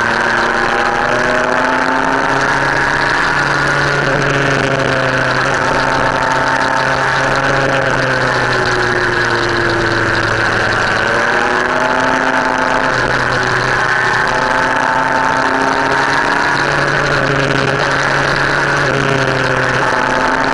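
Motorcycle engine running while riding, heard from an onboard camera, its pitch rising and falling slowly as the throttle changes, over a steady rush of wind and road noise.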